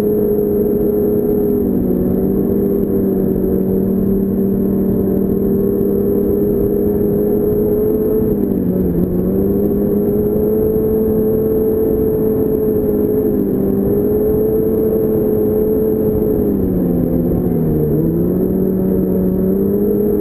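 2006 Yamaha Apex Attak snowmobile's four-stroke four-cylinder engine running steadily at trail speed, dipping in pitch as the throttle eases off and picking back up, once about halfway through and again near the end.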